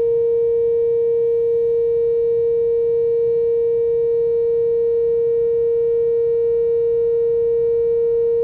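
Whelen WPS-4004 electronic outdoor warning siren sounding its steady alert tone during a test: one loud unbroken tone that holds at a constant pitch and level.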